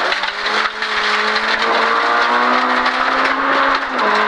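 Oettinger 16-valve four-cylinder engine of a VW Golf 16S rally car, heard from inside the cabin, running hard in one gear with its pitch slowly climbing, then dropping near the end as the revs fall. Gravel and tyre noise hiss underneath.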